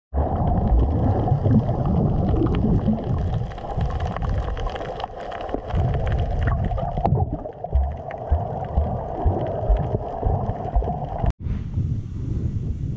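Underwater sound from a camera submerged in the sea: a muffled rushing and gurgling of water with many scattered crackles and clicks. About eleven seconds in it cuts off abruptly and gives way to a steadier, thinner open-air hiss.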